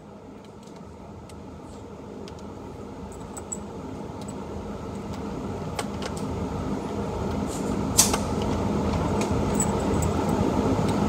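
A steady mechanical rumble with a low hum, growing louder throughout, under a few scattered sharp clicks of cartridges being pressed into a rifle magazine, the loudest click about eight seconds in.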